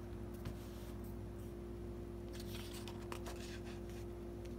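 Pages of a large hardcover book being handled and turned, the paper rustling in a few short spells, over a steady low electrical hum.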